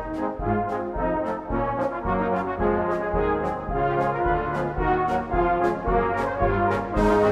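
Brass band playing a slow hymn tune in held chords, with a regular light tick on the beat above it. The playing gets louder near the end.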